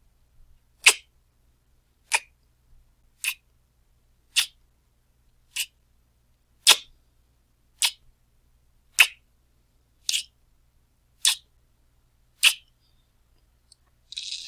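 A lighter being struck over and over: eleven sharp, separate clicks about a second apart, with no flame hiss between them.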